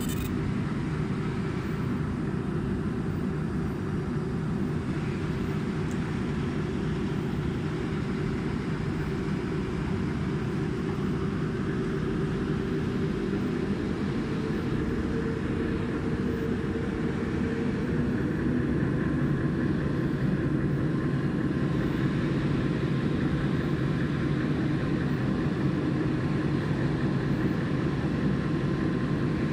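Steady low hum of a fiber laser marking machine's cooling fans running, a little louder in the second half.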